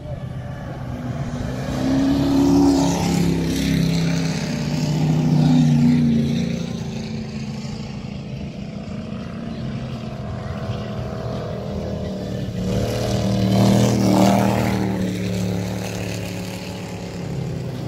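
Race cars with Ford 302 small-block V8 engines run flat out past on a dirt track. The engine noise swells to its loudest twice: about two to six seconds in, and again around fourteen seconds in.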